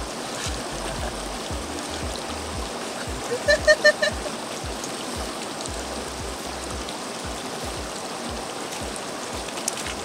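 Shallow mountain stream rushing over stones, under background music with a bass line. A person's voice breaks in about three and a half seconds in with a few short pitched calls.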